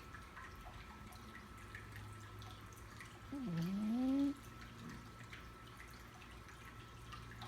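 A sleeping cat snoring: one pitched snore about halfway through, about a second long, that dips and then rises in pitch.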